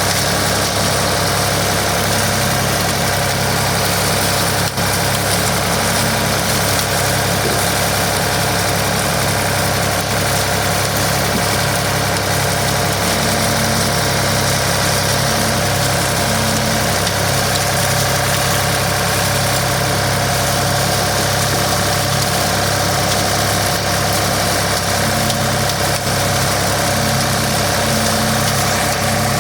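Case 555 backhoe loader's engine running steadily at an unchanging speed.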